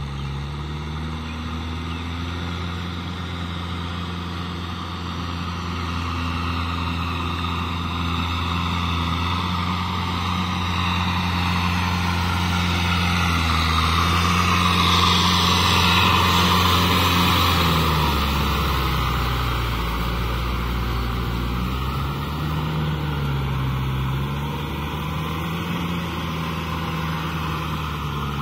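Tractor engine running steadily under load while its rotary tiller churns through a flooded, muddy rice paddy. The engine and churning grow loudest as the tractor passes close about halfway through, then the engine pitch rises and falls in the last third.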